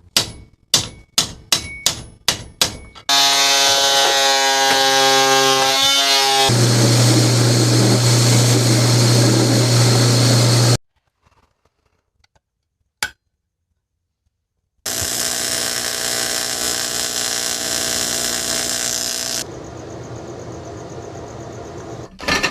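Power tools working in several separate runs: first a quick string of sharp clicks, then a motor whining with a shifting pitch, a louder, harsher run with a low hum, a pause of a few seconds broken by a single click, and a further run that drops to a quieter level near the end.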